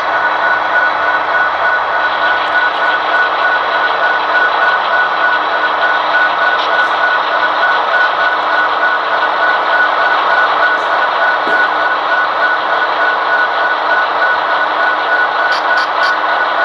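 Sound-equipped HO-scale model diesel locomotive running slowly, its onboard speaker playing a steady diesel engine drone with a high steady whine over it. A few faint ticks come near the end.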